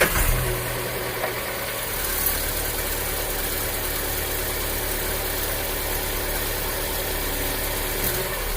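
Volkswagen Fox car engine catching at the start and settling into a steady idle after a cold morning start. It runs quietly, without the cold-engine knock it had before its pistons were replaced.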